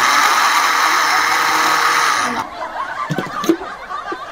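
Electric kitchen blender running steadily, then switched off a little over two seconds in; a few light knocks follow.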